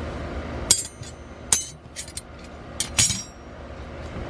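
Steel wrenches clinking against each other as they are handled and set down: about five sharp metallic clinks, each with a brief ring.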